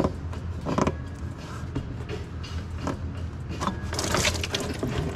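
Hand tools clicking and knocking against engine parts as a fitting is worked loose, with a brief clattering, rustling burst about four seconds in.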